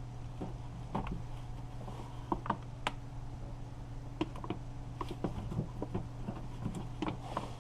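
Irregular light clicks and taps of hands and tools working on parts inside a car door, over a steady low hum.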